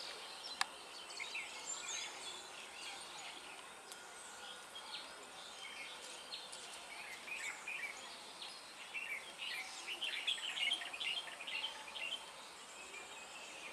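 Small birds chirping, many short calls close together and busiest about ten seconds in, over faint steady outdoor noise. A single sharp click comes just after the start.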